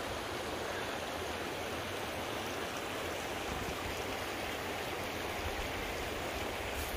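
Steady rushing of flowing water, an even unbroken noise.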